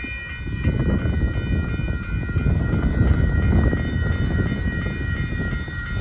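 Railroad grade-crossing warning bells ringing steadily as the crossing gates rise after the train has cleared, over a dense low rumble.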